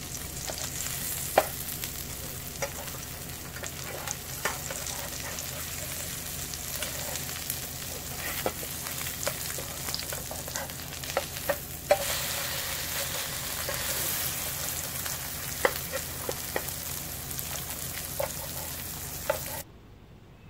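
Egg-and-vegetable pancakes sizzling in oil in a frying pan, with sharp clicks and scrapes of a metal spatula against the pan as they are pushed and turned. The sizzling cuts off suddenly near the end.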